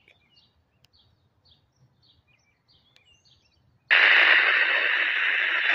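Tidradio TD-H3 handheld radio's speaker hissing with static for about two seconds, starting and cutting off abruptly: the 147.120 repeater's tail coming back after being briefly keyed up, a kerchunk. Faint bird chirps before it.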